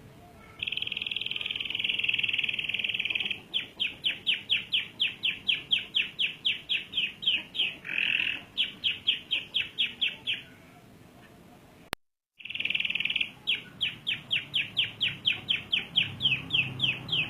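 Domestic canary singing long rolling phrases: a sustained buzzy trill, then quick repeated notes at about four a second. About ten seconds in the song pauses and briefly cuts out, then starts again with another trill and a run of repeated notes.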